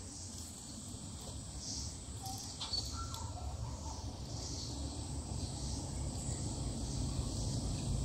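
Rainforest ambience: a steady high insect hiss with a few short, faint bird-like calls, over a low rumble that grows slightly louder near the end.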